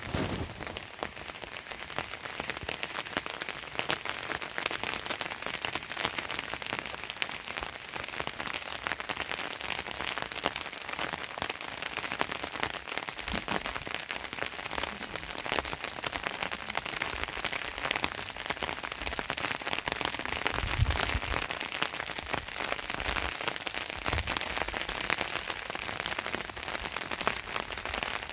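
Steady rain falling: a dense, even patter of many small drops, with a brief low rumble about two-thirds through.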